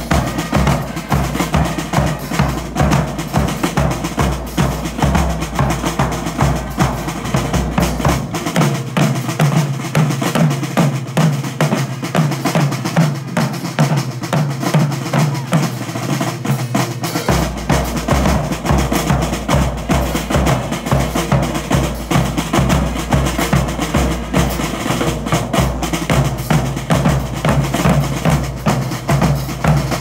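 School marching drumline playing a fast cadence on snare drums, bass drums and cymbals, with dense, even drum strokes. The deepest notes drop out for several seconds in the middle, then come back in.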